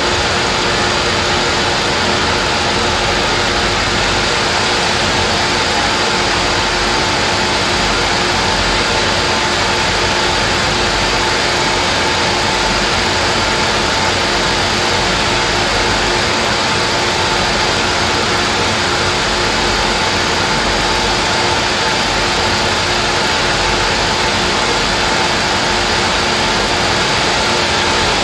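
Miniature Stirling engine running at a constant speed: a steady mechanical whir with a constant hum.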